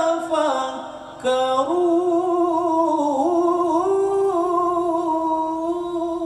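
Male qari reciting Quran verses in melodic tilawah style through a microphone. The voice drops away for a breath about a second in, then holds one long, ornamented phrase whose pitch wavers up and down.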